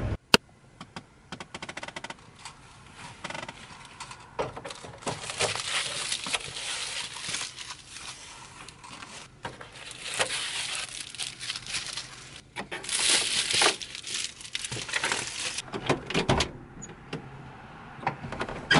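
Rustling and handling noises inside a van: soft crinkling in irregular bursts, with scattered clicks and knocks and one sharp click just after the start.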